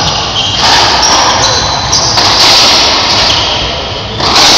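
Racquetball rally: the rubber ball cracked off racquets and slammed into the court walls, three hard shots about a second and a half apart, each ringing and echoing in the enclosed court.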